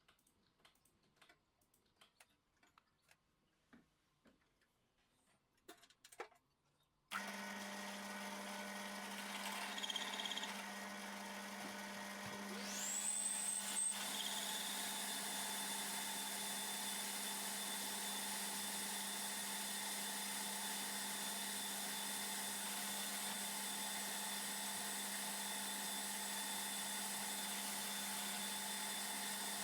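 Faint scattered clicks, then about seven seconds in an electric power tool's motor switches on abruptly and runs steadily with a constant hum. A high whine rises quickly about thirteen seconds in and then holds steady with the motor.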